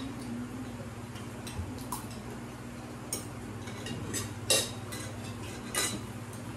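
Cutlery clinking and scraping on plates during a meal, a few light taps, then two sharper clinks about four and a half and six seconds in, over a steady low hum.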